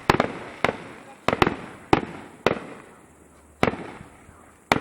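Fireworks shells bursting: a string of sharp bangs, about eight in under five seconds, each fading away quickly. The bangs come at uneven intervals, with a longer gap of about a second after the middle.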